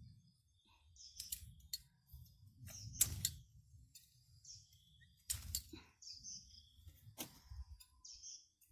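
Small birds chirping in short calls, with about five sharp clicks spread through, the loudest about three seconds in, over a low rumble.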